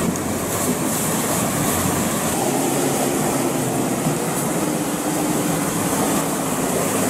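A Toyota four-wheel drive fording a shallow rocky creek: its engine running with a steady hum under the rush and splash of water thrown up by its wheels.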